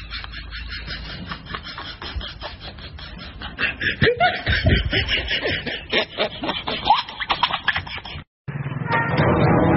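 Rapid scratchy rasping with short, pitch-bending vocal sounds in the middle. After an abrupt cut near the end, music starts.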